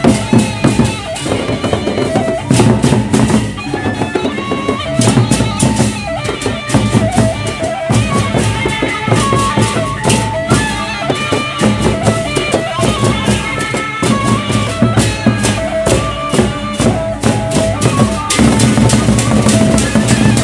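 Gendang beleq ensemble playing: large Sasak drums beating with crashing cymbals and a melody of held metallic notes above them. The playing grows denser and louder near the end.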